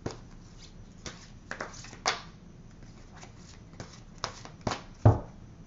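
Oracle card deck being shuffled and handled: a string of irregular sharp card snaps and flicks, with a louder thump about five seconds in.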